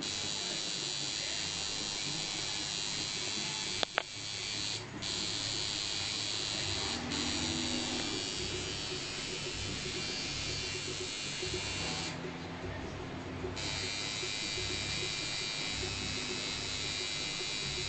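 Electric tattoo machine buzzing steadily on skin, cutting out for a moment about five seconds in and again for a second or so about two-thirds of the way through. A single sharp click just before four seconds is the loudest moment.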